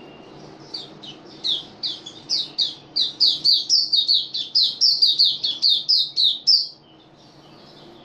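White-eye (mata puteh) singing: a fast run of short, high, downward-sweeping notes, about four a second, building louder and then stopping abruptly near the end.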